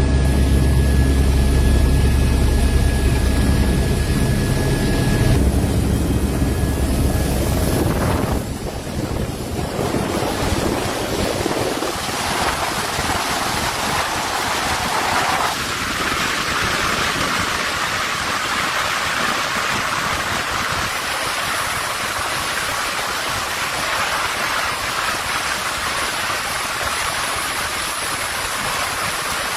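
A running engine with a steady low hum for about the first eight seconds, then a rushing, hissing noise like wind and water, which changes abruptly several times.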